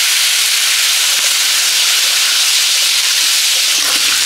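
Freshly cut radish and potato pieces sizzling loudly in hot mustard oil, a steady, even hiss as they fry.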